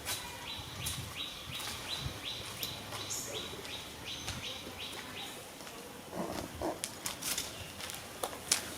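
A regular series of short, high chirps, a little under two a second, that stops about five seconds in. Scattered clicks and rustles run through it, with a brief lower call around six seconds in.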